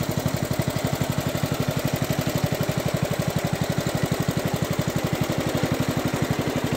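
The 7 hp Kohler single-cylinder engine of a 1969 International Cub Cadet Model 72 garden tractor running steadily, with a rapid, even beat.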